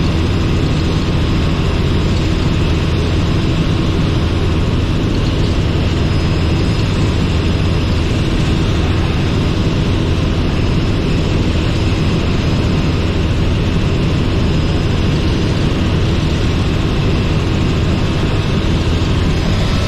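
Robinson R44 helicopter in flight: the piston engine and rotors make a steady, unbroken drone with a low hum.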